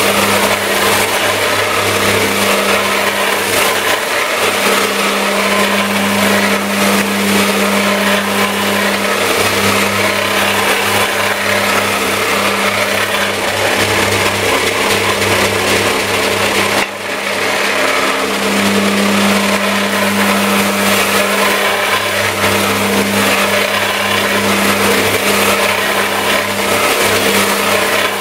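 Bench belt sander running, with a workpiece held against the moving abrasive belt: a steady motor hum under a continuous grinding hiss. The sound dips briefly a little past halfway, then carries on.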